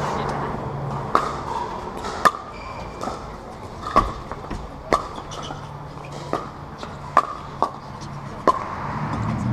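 A pickleball rally: hard paddles striking a hollow plastic Dura 40 ball, about eight sharp pops at an irregular pace of roughly one a second.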